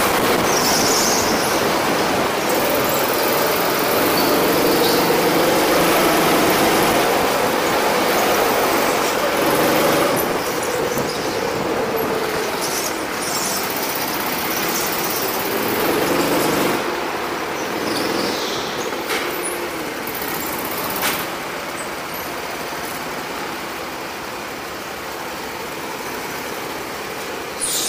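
Go-kart engine running on track, its pitch rising and falling with the throttle. It eases to a quieter, lower run from about ten seconds in, with a few short knocks later on.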